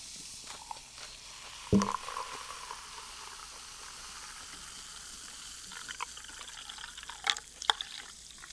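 A knock about two seconds in, then a drink poured steadily into a glass, with a couple of sharp clicks near the end.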